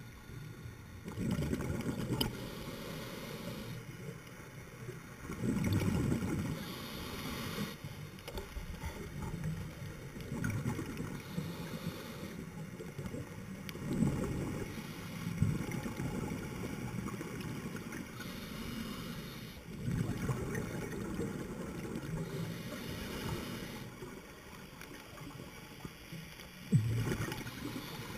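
Scuba diver breathing through a regulator underwater: bursts of exhaled bubbles rumble every few seconds, with a fainter hiss between them.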